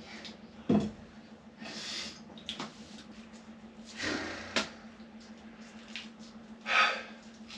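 A sharp knock, then several short noisy rasps, over a steady low hum.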